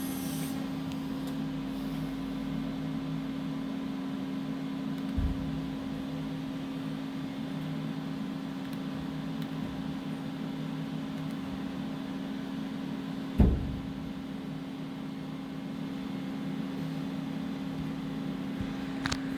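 Doosan Puma 4100LB CNC turning center running with a steady hum, broken by a small knock about five seconds in and a louder thump in the second half.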